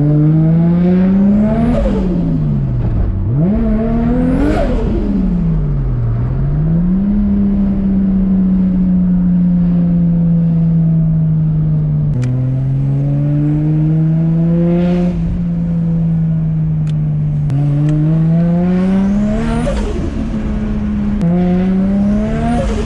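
Built RB25DET turbocharged straight-six in an R33 Skyline pulling under boost several times, its pitch climbing and then dropping sharply as the throttle closes or it changes gear, with a steadier cruising stretch in the middle. The refitted intercooler pipe is holding under boost.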